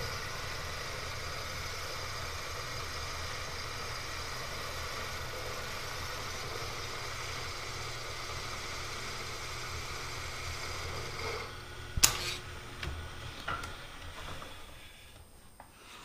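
Milling machine spindle running steadily with a boring head taking a trial cut in a drilled hole, to set the head to 22 mm. The running stops about eleven seconds in, followed by a sharp clunk and a few lighter knocks.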